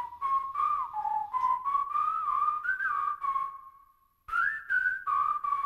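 Whistled melody over a light, steady beat, a song's outro. The tune glides between notes and breaks off for about half a second some four seconds in, then starts again.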